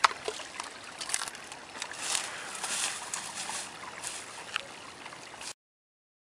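Footsteps rustling through dry grass over a steady outdoor hiss, with scattered crunches. The sound cuts off abruptly to silence about five and a half seconds in.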